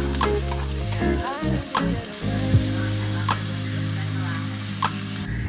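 Diced bell peppers and onions sizzling in hot oil in a stainless steel frying pan, with a few short scrapes of a utensil. Music with a steady bass plays underneath.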